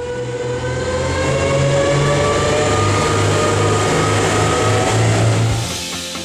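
A powerboat's engine accelerating, its pitch climbing steadily over several seconds, then fading near the end.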